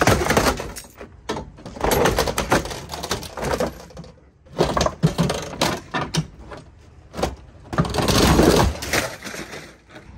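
Rear door of a crash-damaged Ford Taurus Police Interceptor being wrenched off its hinges: bent sheet metal and hinges cracking and scraping in several rough bouts full of sharp clicks, the longest and loudest near the end as the door comes free.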